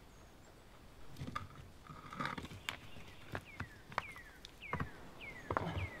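Stones knocking and scraping against each other as a flat stone slab is handled and set on a stacked-rock oven, with steps on loose gravel; the heaviest knock and thud come near the end. Over the second half, a short high whistled note that falls in pitch repeats five times.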